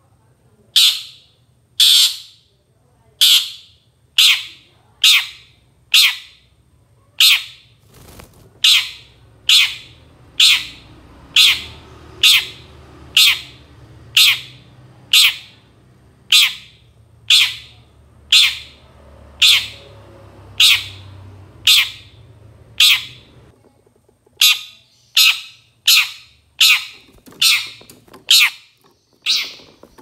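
Long-tailed shrike (cendet) giving short, harsh calls over and over, about one a second, quickening to about two a second near the end.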